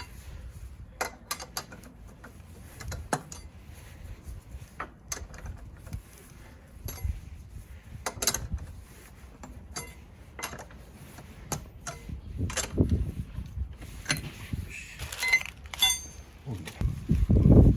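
Scattered metallic clinks and clicks of hand tools being handled during a car tyre change, with a brief squeak about three quarters of the way through and louder handling noise near the end.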